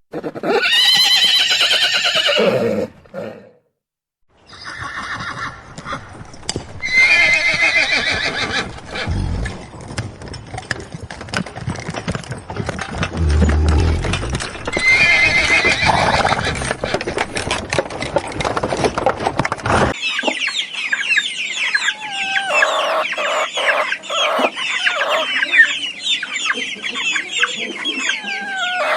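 Horse neighing (whinnying) several times: one call at the start and more around seven and fifteen seconds in. At about twenty seconds this gives way to chickens clucking, many short overlapping calls.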